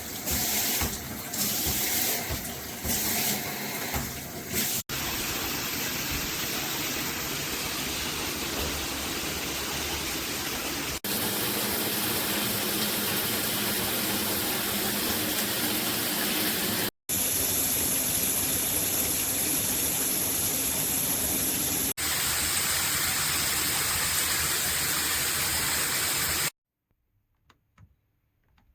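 Water spraying steadily from a shower head, in several cut-together takes whose character shifts every few seconds. It stops shortly before the end, leaving a few faint ticks.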